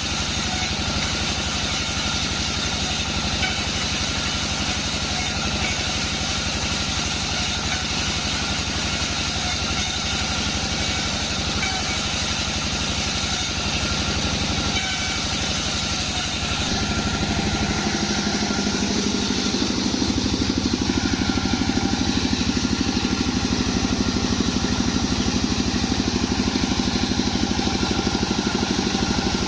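Sawmill machinery running steadily with an engine-like drone. About two-thirds of the way through, the sound turns deeper and a little louder.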